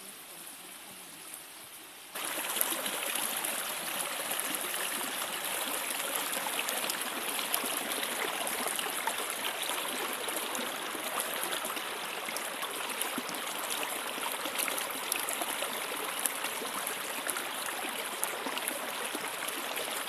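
Shallow rocky stream rushing over and between boulders, a steady rush of water. It gets abruptly louder about two seconds in and then holds steady.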